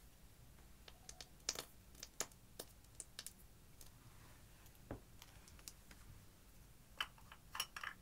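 Scattered light clicks and taps from small plastic makeup containers being handled over a glass baking dish, as a cream tube is squeezed and a jar is picked up. There are a few sharp clicks in the first seconds and a quick cluster near the end.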